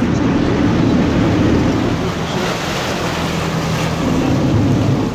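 Tour boat under way: its engine hums steadily beneath water rushing along the hull, with wind on the microphone.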